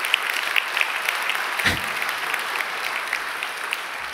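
Audience applauding in a large hall, the clapping easing off near the end.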